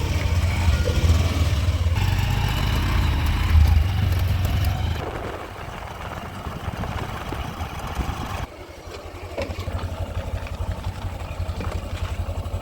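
Heavy diesel engine of earth-moving machinery running under load, loud for the first five seconds and then easing to a lower, steady pulsing throb.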